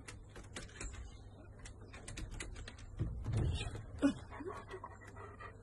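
Scattered light clicks and taps of dogs moving about on wooden deck boards inside a wire pen, with a brief low rumbling sound about three to four seconds in.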